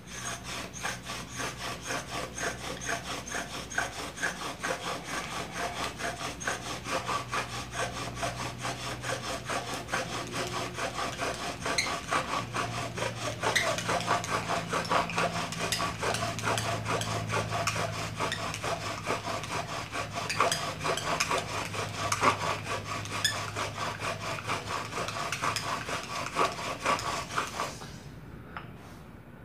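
Bow drill: a wooden spindle spun back and forth by a bow, grinding in a wooden hearth board to make fire by friction. A fast, rhythmic rasping rub, about two to three strokes a second, that stops shortly before the end.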